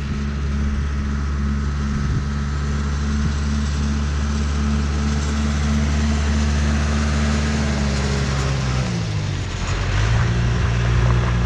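John Deere 310C backhoe's four-cylinder diesel engine running steadily as the machine is driven along. Its pitch drops a little after about eight seconds and rises again about a second later.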